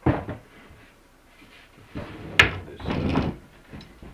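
A large plywood beaver-stretching board being handled and set flat on top of a plastic trash can. There is a thump at the start, a sharp knock about halfway through, then a short run of knocking and scraping as the board settles.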